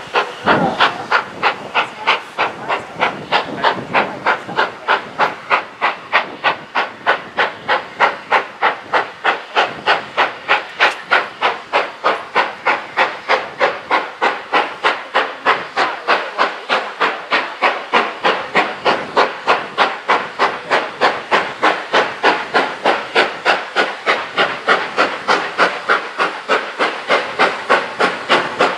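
GWR Hall class 4-6-0 steam locomotive No. 4953 'Pitchford Hall' working steadily under steam: the sharp exhaust beats of its two cylinders come evenly at about three a second.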